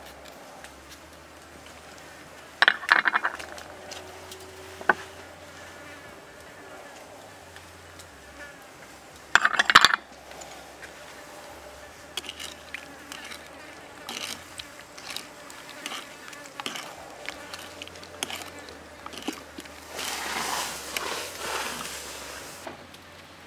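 A metal spoon stirring and scraping in a coconut-shell bowl of chilli fish sauce, with a few sharp clinks and clatters near the start and many small scrapes later on. Insects buzz steadily underneath.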